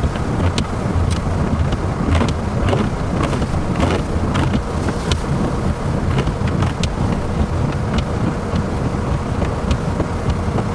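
Strong storm wind buffeting the microphone in a steady low rumble, with scattered sharp ticks, several a second, as drops or debris strike.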